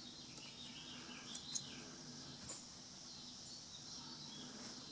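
Faint background ambience: birds chirping and a steady high insect-like hiss, with a few small clicks and a sharper click at the very end.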